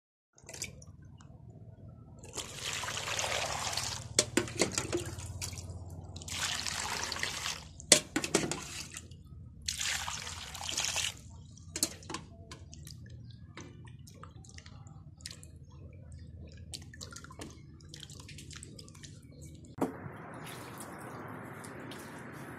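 Water splashing and sloshing as white radishes are washed by hand in a plastic basin of water, in three bursts of a few seconds each, with several sharp knocks of the roots against the basin. Near the end a softer, steadier water noise sets in.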